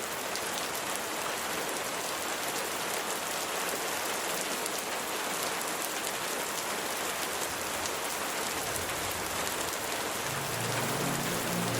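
Steady rain falling, an even hiss with the light patter of individual drops hitting a surface. Low, sustained musical tones come in near the end.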